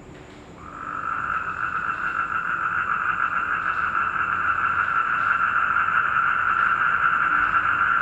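Black-spectacled toads trilling: a continuous call that starts about half a second in and grows louder over the next few seconds.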